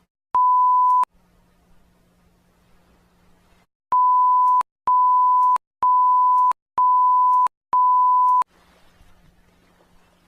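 Loud, pure electronic beep tone like a censor bleep, edited in: one beep, a pause of about three seconds, then five beeps in a row, each under a second long.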